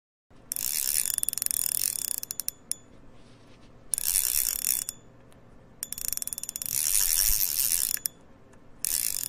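Fishing reel drag screaming as line is pulled off, in four runs, each trailing off into slowing clicks.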